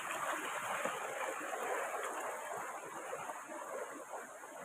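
Shallow rocky stream running over stones: a steady hiss of flowing water that eases off slightly toward the end.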